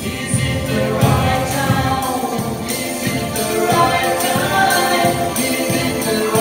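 Live band music with electric bass and guitar, and a sung vocal line coming in about a second in.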